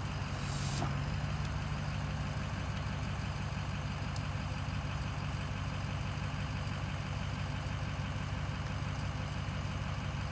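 Geoprobe direct-push drill rig's engine running at a steady speed, a low even drone throughout; its speed-up button is not working. A brief hiss about half a second in.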